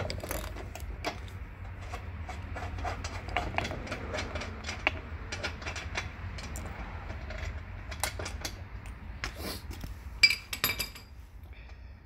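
Ratchet wrench clicking and small metal parts clinking as the lock nut on a wheel axle is worked, with a short burst of sharper ringing metal clinks near the end.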